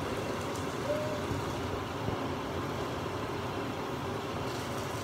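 Water running from a kitchen tap, a steady rushing noise.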